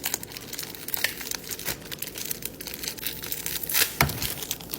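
Crinkly food packaging being torn open and unwrapped, a steady run of crackles with two louder crinkles near the end, as a yakgwa honey cookie is unwrapped.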